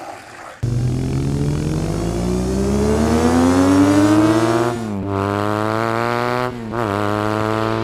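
A car engine accelerating hard through the gears, its pitch climbing steadily. The pitch drops twice at gear changes, about five seconds in and again just before seven seconds. The engine sound cuts in suddenly under a second in.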